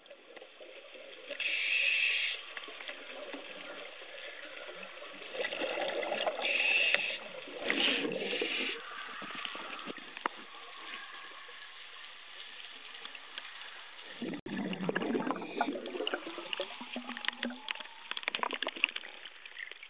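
Underwater bubbling and rushing from a scuba diver's regulator, with several louder bursts of exhaled bubbles in the first half. Near the end it gives way to crackling and splashing water just below the surface.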